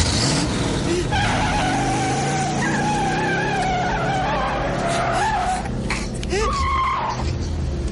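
A car's rear tyres spinning and squealing in a smoky burnout, the squeal wavering in pitch, over the engine revving hard. The squeal starts about a second in, with shorter squeals near the end.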